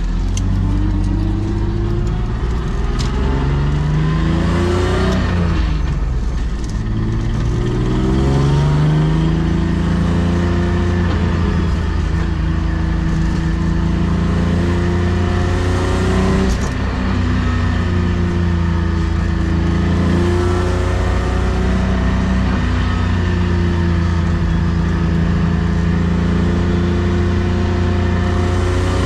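BMW M50B25 2.5-litre straight-six with aftermarket headers and exhaust, heard from inside the cabin, accelerating: the engine note climbs, drops at a gear change about five to six seconds in, climbs again, then carries on with smaller rises and dips as the throttle varies.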